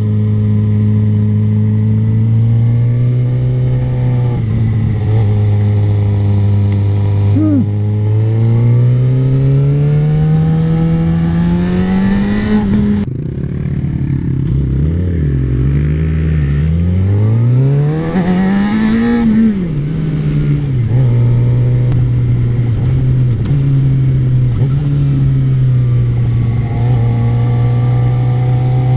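Sport motorcycle's inline-four engine under way, the 2008 Suzuki GSX-R600. It holds a steady note, climbs through the revs, drops sharply about thirteen seconds in, rises and falls again, then settles to a steady cruise for the last third.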